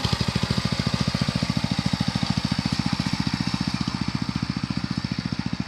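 Small engine of a plowing machine (cultivator) running steadily with an even, rapid firing beat, a little quieter near the end.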